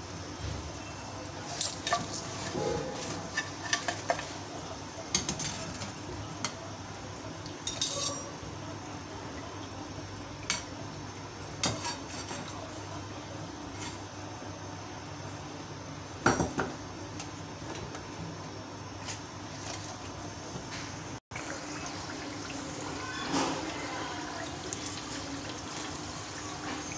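Samosas deep-frying in hot oil with a steady sizzle, while a metal slotted spoon and a wire skimmer clink and scrape against the steel pan, with one louder clink about halfway through.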